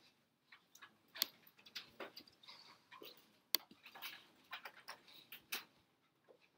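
Scattered, faint clicks of a computer mouse, three sharper ones among lighter ticks and rustling.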